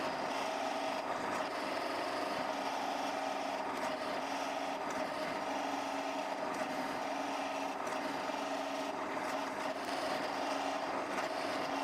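Electric drill running steadily, boring 3 mm pilot holes into wood.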